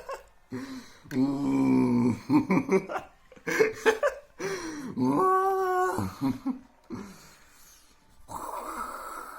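A man's wordless vocal noises: several held voiced sounds about a second each, one on a steady pitch, with laughter-like bursts between them and a breathy hiss near the end.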